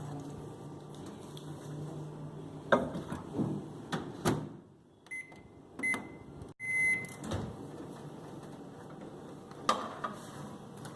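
Microwave oven running with a low steady hum for about four seconds, with a few knocks. It then stops and beeps three times, the last beep longest, marking the end of the cooking cycle, followed by a couple of knocks from the door or the bowl.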